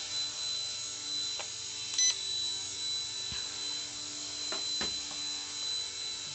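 XK K127 micro RC helicopter hovering, its small electric motors and rotors giving a steady high whine. About two seconds in there is one short electronic beep, the transmitter's trim beep, and a few light clicks.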